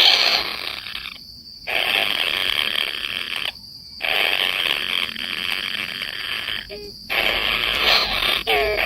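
Outdoor wildlife ambience: a steady high insect drone with a few short croaking calls. The sound cuts out abruptly about a second in, again near the middle, and briefly near the end.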